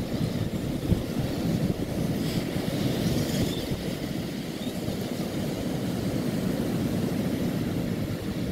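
Steady low rumble of surf breaking on a rocky shore, mixed with wind on the microphone.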